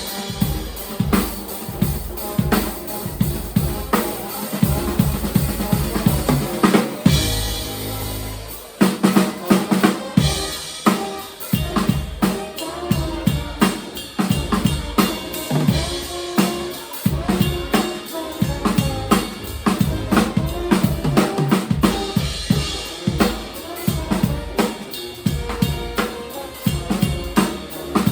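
Live band playing, with the drum kit to the fore: bass drum, snare and rimshots keep a busy beat. About seven seconds in the drums break off briefly under held low notes, then come back in.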